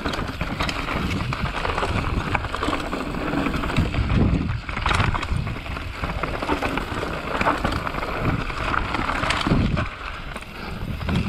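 Mountain bike riding a rough dirt trail: steady tyre noise with continual rattling and clicking from the chain and frame over the bumps, a few harder knocks among them, and wind buffeting the microphone.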